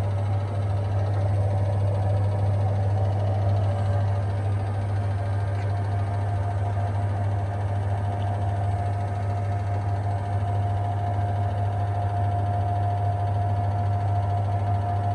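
Washing machine running a spin cycle set to 800 rpm: a steady motor hum with a high whine that shifts slightly in pitch about six seconds in.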